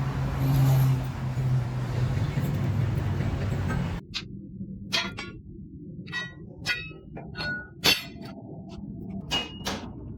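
A steady low mechanical hum for about four seconds, then, after an abrupt change, a series of irregular sharp metal clangs, several with a short ringing tone: hammer blows on steel leaf-spring parts.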